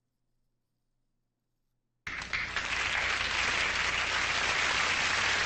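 Silence for about two seconds, then a studio audience applauding, a dense and steady clapping.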